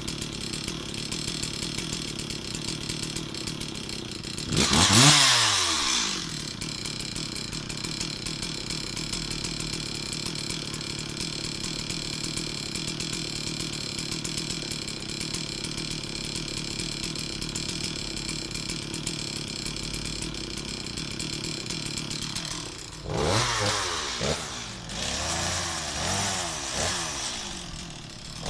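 Stihl MS 260 two-stroke chainsaw idling steadily, revved hard once about five seconds in, then revved several times in quick succession near the end.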